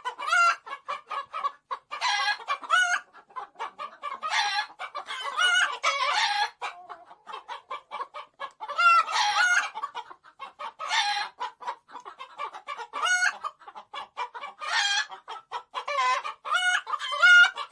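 Chicken clucking and cackling: quick runs of short clucks broken every couple of seconds by a longer call that rises and falls in pitch.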